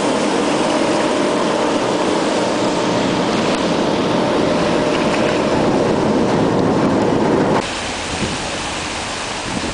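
A ship's engine drones steadily while water and broken ice rush along the hull as the vessel pushes through brash ice. About three-quarters of the way in the sound changes suddenly: the engine hum drops away, leaving a rougher wash of water with low rumbling wind on the microphone.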